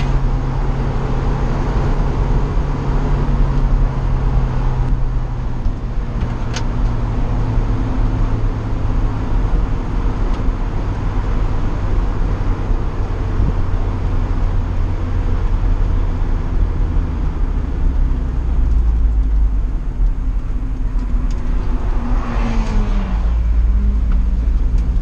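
Car engine heard from inside an open-topped, stripped-out cabin, its pitch falling slowly as the car slows, under steady wind and road noise. A short falling sound passes near the end.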